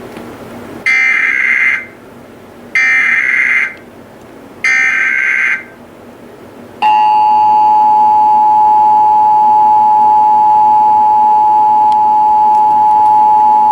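Emergency Alert System header and attention tone opening the national EAS test. Three short bursts of the buzzing SAME digital data header, about a second each, are followed about seven seconds in by the steady two-tone EAS attention signal.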